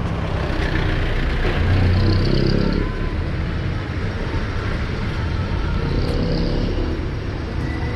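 Street traffic: a vehicle engine rumbling close by, loudest about two seconds in, over a steady low traffic hum.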